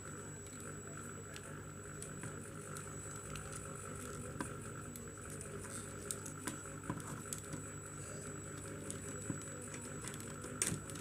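Faint scattered clicks and taps of the plastic toner-cartridge frame and imaging drum being handled and fitted together by hand, over a steady background hum. There is a slightly louder click near the end.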